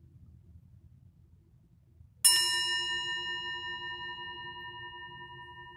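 Metal singing bowl struck once with a striker about two seconds in, ringing with several steady overtones that slowly fade.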